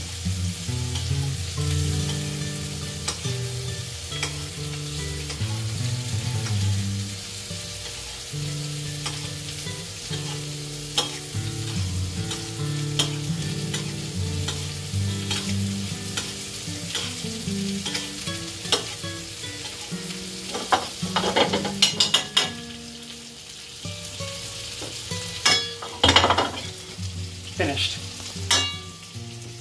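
Melted butter sizzling in a stainless steel frying pan over a gas flame as a spoon bastes it over a swordfish fillet with thyme and garlic. Sharp metal clinks of the spoon against the pan come in the last third.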